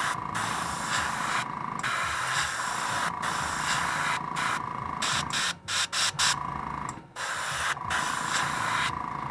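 Airbrush spraying paint with a steady hiss, cut off briefly again and again as the trigger is let off between passes.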